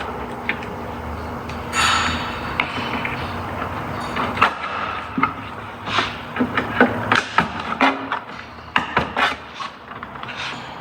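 Plastic retaining tabs and a wiring harness being worked loose by hand: a brief rustle, then a run of sharp, irregular clicks and knocks as the clips are pushed and the harness is pulled free.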